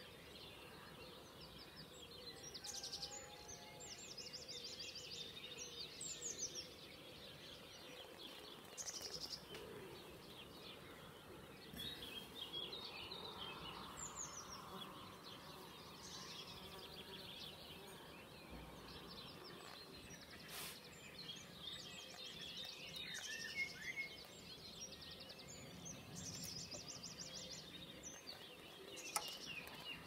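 Several songbirds singing at once in a faint spring dawn chorus: scattered high chirps and quick rattling trills over a steady background hiss. A sharp click comes about two-thirds of the way in and another, louder one near the end.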